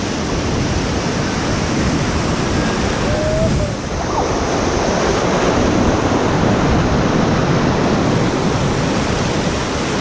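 River whitewater rapids rushing and splashing around an inflatable raft, growing louder about four seconds in.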